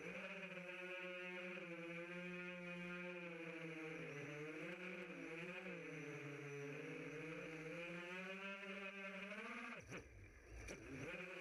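FPV racing quadcopter's Racerstar 2205 2300kv brushless motors and propellers whining, the pitch rising and falling with the throttle. Near the end the whine dips out for about a second as the quad rolls, then comes back.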